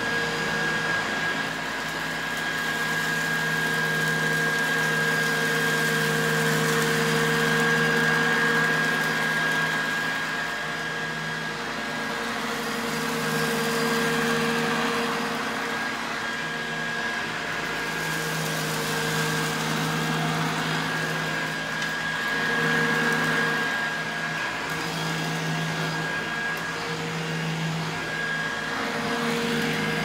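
1980 Hoover Junior U2128 upright vacuum cleaner running on carpet: a steady motor hum with a high whine and rushing air. The level swells and dips gently as it is pushed back and forth.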